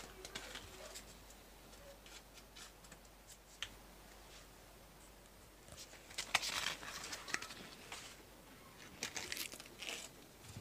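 Knife scraping butter out of its paper wrapper with small scattered clicks, then the butter wrapper crinkling in two louder bursts, about six and nine seconds in.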